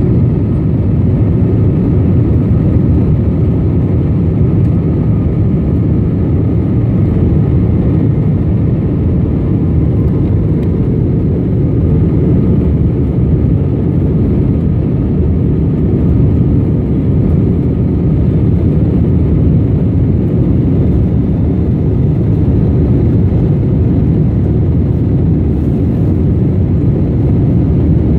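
Steady cabin noise of a jet airliner climbing after takeoff: the low rumble of the engines and rushing air heard from inside at a window seat, with a faint steady hum over it.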